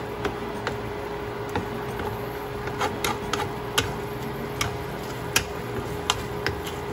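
Wooden spatula stirring a thick cream sauce in a nonstick pan, with irregular light clicks and knocks as it strikes the pan, over a steady faint hum.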